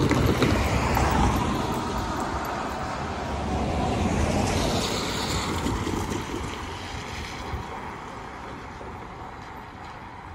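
Cars driving over the level crossing on a wet road, with tyre noise on the wet surface. It is loudest at the start and again about four seconds in, then fades away over the last few seconds as the traffic moves off.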